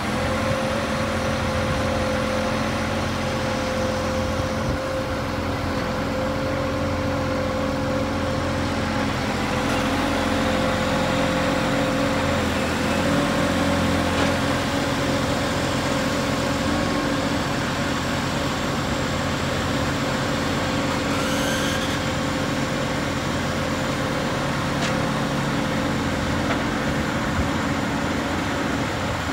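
Scania 124GB crane truck's diesel engine running steadily to drive the hydraulics as the loader crane's boom is raised and extended, with a steady whine over the engine rumble.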